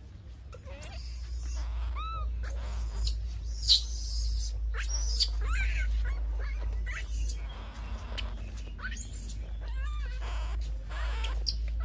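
Baby monkeys squealing in a run of short, high-pitched calls that rise and fall in pitch, over a low steady hum.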